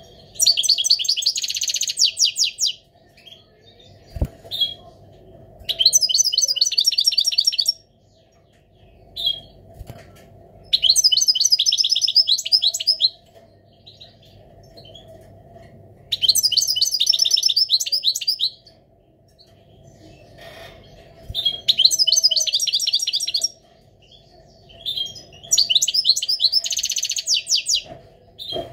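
Male European goldfinch in breeding excitement singing: six bursts of rapid, high twittering song, each about two seconds long, coming roughly every five seconds.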